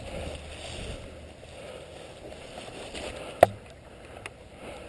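A single sharp shot from an L86 airsoft rifle about three and a half seconds in, with a fainter click about a second later, over a low rustle of movement.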